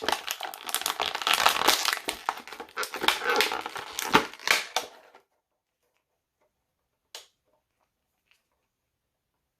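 Action-figure packaging being handled and crushed: dense crinkling and crackling with sharp clicks, which stops abruptly about five seconds in. One short click follows a couple of seconds later.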